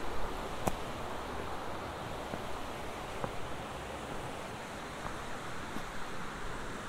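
Steady rushing of a mountain stream over rocks and small cascades, with a few footsteps on the stony trail.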